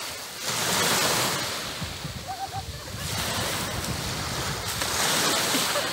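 Sea waves breaking and washing up the beach in swells: one surge about a second in, a lull, then another building from about three seconds on.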